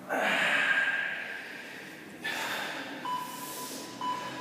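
A man breathing out hard twice, out of breath from exertion. About three seconds in, an interval timer starts beeping about once a second.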